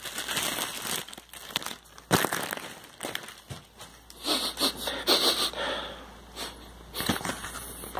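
Plastic wrapping crinkling and rustling as a tripod is handled and unwrapped, with a sharp knock about two seconds in. A few loud sniffs near the middle as the new plastic is smelled.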